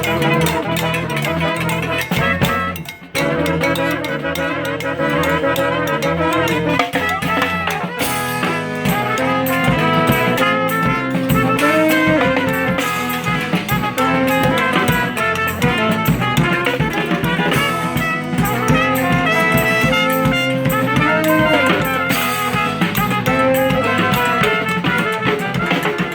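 Brass band playing live: horns and saxophone over drums. The music drops out briefly about three seconds in, then carries on.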